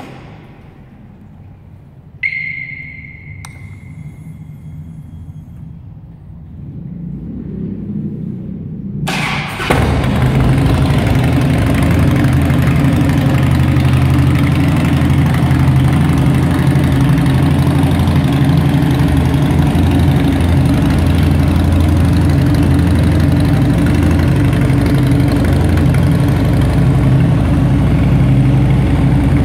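2009 Harley-Davidson Dyna Fat Bob's air-cooled Twin Cam 96 V-twin, breathing through Vance & Hines Long Shots pipes, an aftermarket air filter and remapped fuel injection, started about nine seconds in and settling into a steady idle. Before it catches there is only a brief ringing tone about two seconds in.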